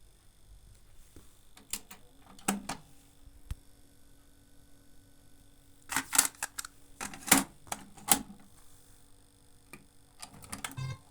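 Mechanical clicks and clunks from a TEAC V-870 cassette deck being operated, in several clusters, the loudest in the middle, ending in a quick run of ticks.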